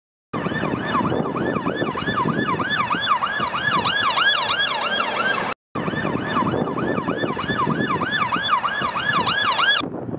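Police car siren on yelp: a fast rising-and-falling wail repeating about three times a second, over road traffic noise. It breaks off for a moment about halfway through and cuts off abruptly near the end.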